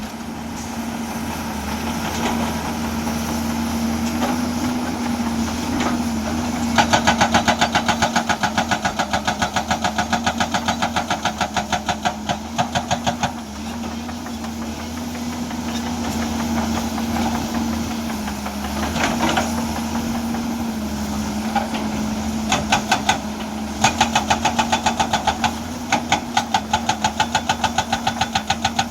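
A Hyundai EX210 excavator's diesel engine runs steadily while its hydraulic breaker hammer pounds rock in bursts of rapid blows, about five a second. The longest run starts about seven seconds in and lasts some six seconds, and shorter runs follow near the end.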